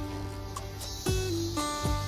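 Background music led by guitar, with held notes over a steady low bass and two deep drum hits, about halfway through and near the end.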